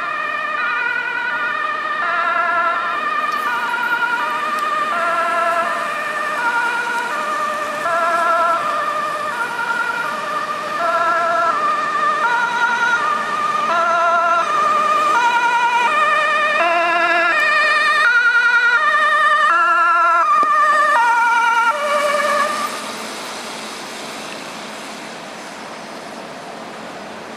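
Ambulance two-tone siren sounding in an even high–low alternation, getting louder as the vehicle comes closer, then cut off about 22 seconds in, leaving the ambulance's engine and road traffic.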